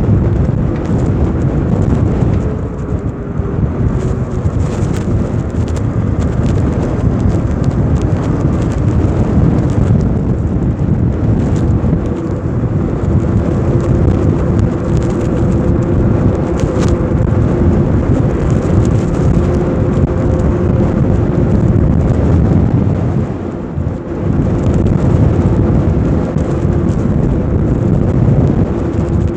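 Wind buffeting the microphone during a ride on an electric bike, a loud low rumble, with a steady hum underneath.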